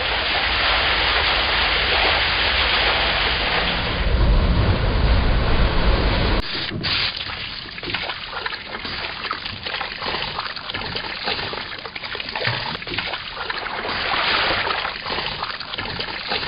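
Sea water: a steady wash of waves with a deep low rumble, changing abruptly about six seconds in to choppy, irregular splashing and sloshing.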